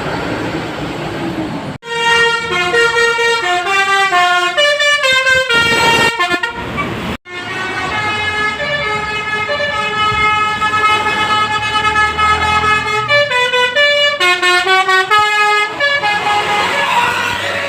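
Basuri telolet bus horn playing a multi-note tune, its stacked horn tones stepping up and down in pitch in two long runs split by a sudden gap about seven seconds in. Street noise fills the first two seconds and the last second or so.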